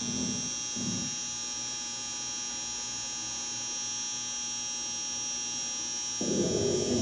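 Steady electric hum and buzz with a high whine, from the Emglo air compressor running. There are brief louder low rumbles at the start and again near the end.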